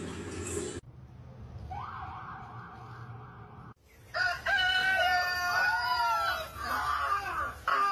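A rooster crows and a dog howls along with it. The long howl rises and falls over the second half.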